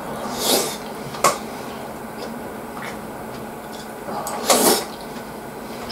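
Close-up eating noises of someone spooning mapo tofu into his mouth: two short, loud noisy bursts, about half a second in and again near the end, and a sharp click just over a second in.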